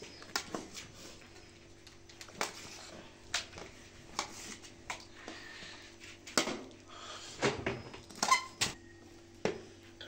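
A kitchen knife cutting raw chicken on a steel tray, with irregular sharp knocks and clinks as the blade and pieces strike the metal, the loudest a little after eight seconds in. A faint steady hum lies underneath.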